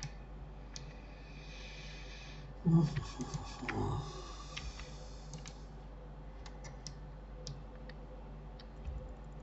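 Scattered clicks of a computer mouse and keyboard over a faint steady hum. A brief, louder low sound comes about three seconds in.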